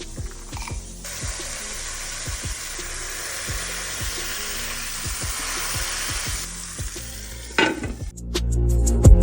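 Ground-beef burger patties frying in a pan, sizzling steadily for several seconds from about a second in, over background music with a steady beat. The music gets much louder near the end.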